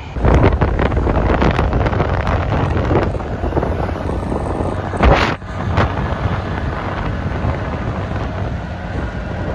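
Wind buffeting the microphone while riding a motor scooter, with the scooter's running and road noise underneath; a stronger gust about five seconds in.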